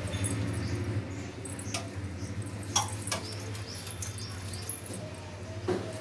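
A toddler's hands and feet knocking on stair treads a few times while climbing, over a steady low hum, with faint high squeaks.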